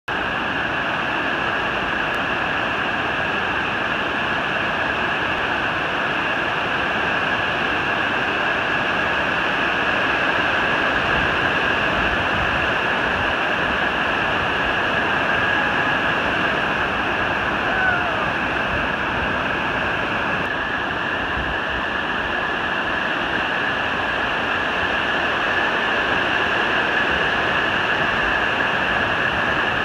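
Whitewater rapids rushing over a bedrock slide in a creek: a steady, loud roar of churning water.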